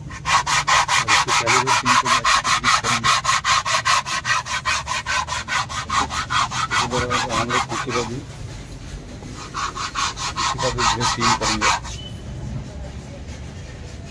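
Brake parts being scrubbed by hand with emery paper (regmal): fast, even rubbing strokes, about five a second. They run for about eight seconds, pause briefly, then go on for another two seconds.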